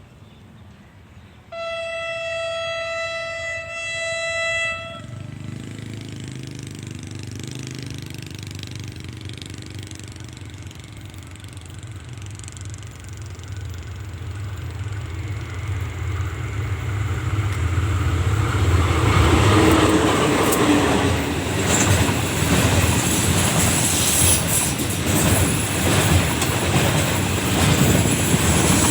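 Diesel train sounding its horn in one steady blast of about three seconds. Its engine rumble then builds as it comes closer, and its wheels clatter loudly over the rails as it passes in the last ten seconds.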